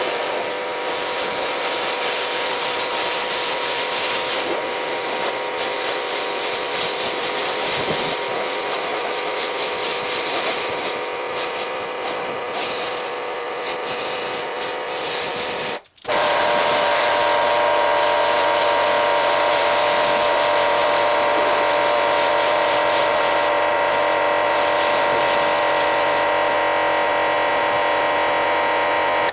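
Kranzle 1152TST pressure washer running under load, its high-pressure jet spraying and rinsing soap off a car: a steady hiss with an even whine. It breaks off briefly about halfway, then goes on a little louder.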